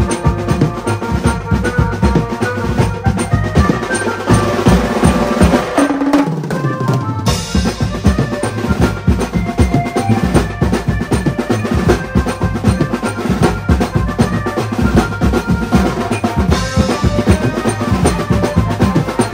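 Music with a heavy, steady drum beat and sustained melodic notes. About six seconds in the bass drops out for a moment, then the full beat comes back in.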